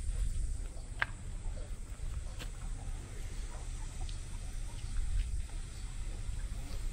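Outdoor ambience on a walk: a fluctuating low rumble of wind on the microphone, a faint steady high hiss, and a few faint clicks.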